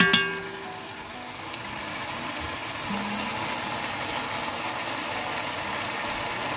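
Chicken and pork simmering in their own juices in an enamel pot, a steady sizzle. Right at the start there is a sharp clink with a short metallic ring as the stirring spoon knocks against the pot.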